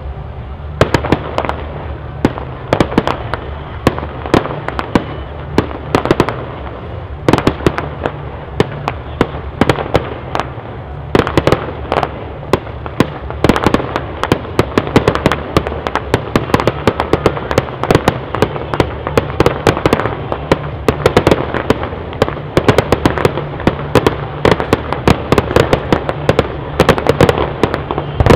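Fireworks display: a dense, uneven run of sharp bangs and crackles from bursting shells, several a second, over a steady low rumble.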